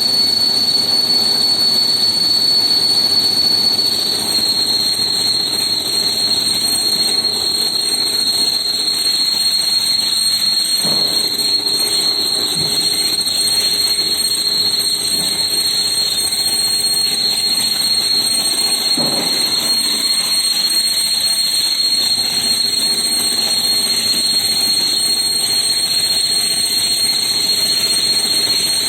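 Haas VM-6 CNC vertical milling machine running a cut, with a steady high-pitched whine over the noise of machining; the whine drops slightly in pitch about four seconds in.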